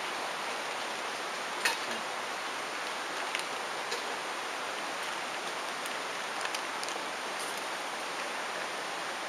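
Steady rushing of a river, with a few brief sharp clicks over it, the loudest about one and a half seconds in.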